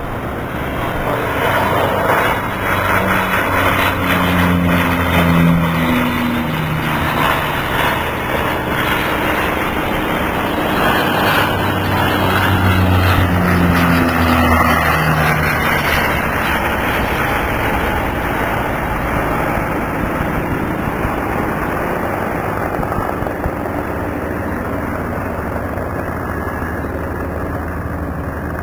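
Engine drone over a steady rush of wind noise, the engine tone swelling louder twice.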